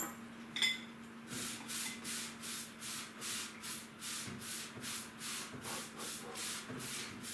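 Brisk back-and-forth scrubbing in a kitchen sink, about three strokes a second, starting about a second in.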